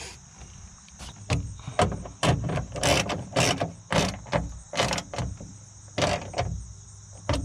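Ratchet wrench clicking in short back-and-forth strokes, about two a second, as the window regulator motor's mounting bolts are driven in.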